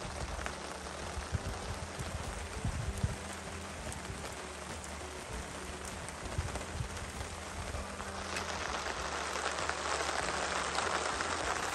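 Steady rain falling, an even patter that grows louder about eight seconds in.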